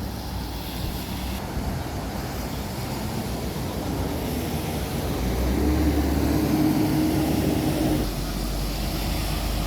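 Motor vehicle engine and road noise, steady, with a louder engine hum from about five and a half to eight seconds in.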